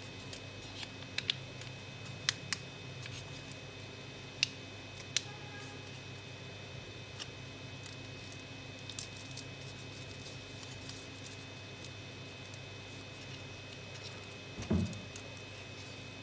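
Origami paper being folded and pinched by hand into a boat shape: scattered short, sharp crinkles and crackles of the paper, most in the first few seconds, over a steady background hum. A low thump comes near the end.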